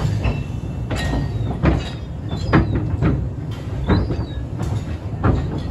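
Narrow-gauge railway carriage rolling slowly over the track: a steady low rumble with irregular sharp clanks and knocks as the wheels cross rail joints and pointwork, and a few faint, brief squeals.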